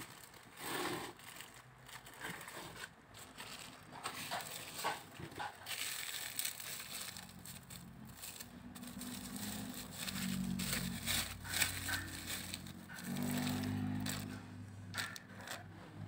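Plastic bubble-wrap packaging crinkling and rustling as it is handled and unwrapped, in irregular crackles. A low steady hum joins about halfway through.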